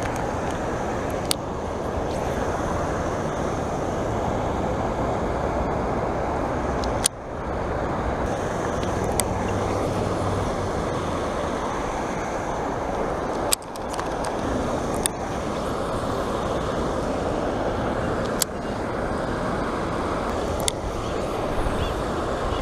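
Steady rushing of water from a small rock waterfall spilling into a pond, with a few sharp clicks now and then from the fishing rod and reel being handled.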